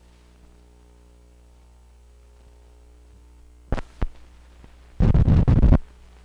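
Steady low hum from an old film print's soundtrack over blank leader, broken by two sharp pops a little before four seconds in and a loud rough crackling burst just under a second long around five seconds in.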